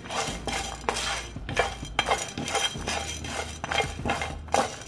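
A spatula stirring and scraping dry lentils, whole spices and coconut pieces around a nonstick pan as they dry-roast without oil, in repeated short scraping strokes about three a second.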